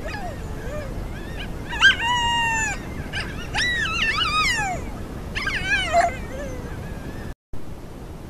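Coyotes howling and yipping: a long held howl about two seconds in, then wavering howls that rise and fall, and short yips around six seconds. The calls stop suddenly near the end, leaving a steady hiss.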